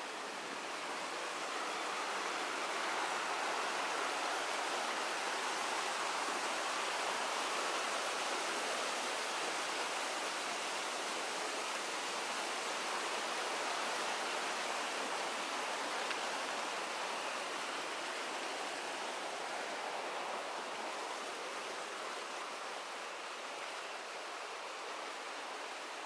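Steady rush of flowing water, a continuous even hiss that swells a little a couple of seconds in and eases slightly near the end.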